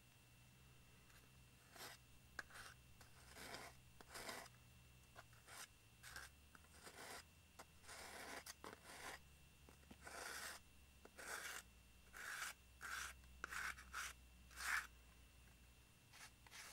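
Faint, short rubbing and scraping strokes, a couple of dozen at irregular intervals, from hands working over a filler-coated plastic model aircraft shell.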